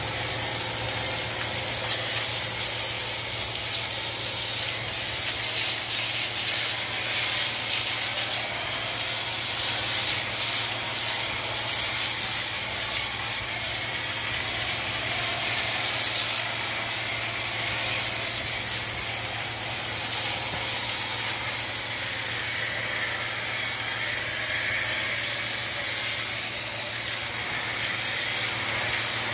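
Pressure washer's jet hissing steadily as it sprays soapy water from a foam bottle onto cattle, over a steady low hum.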